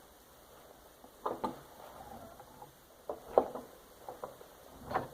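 Scattered small clicks and taps of plastic remote-control parts and hand tools being handled during disassembly, about eight in all, the sharpest a little over three seconds in.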